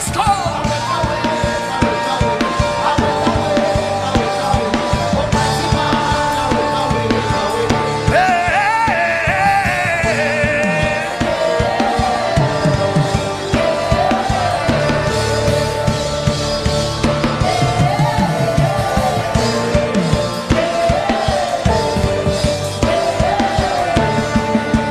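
Gospel worship music: a band with a steady drum-kit beat and a gliding, wavering melody line over it, without clear words.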